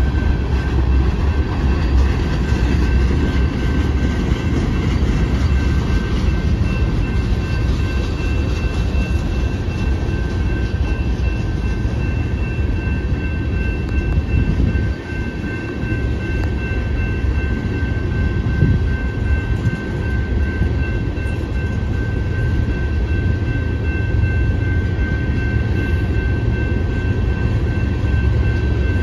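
Freight train hopper cars rolling steadily past with a continuous low rumble of wheels on rail. A steady high-pitched ring sits over it throughout.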